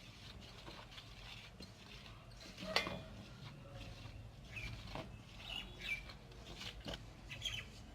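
Scattered light clicks and taps, the sharpest about three seconds in, with a few short high chirps in the second half.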